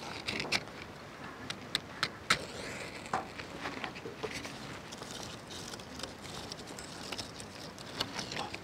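A match struck on a matchbox to light a wood fire, among a scatter of short, sharp clicks and taps as dry sticks are handled.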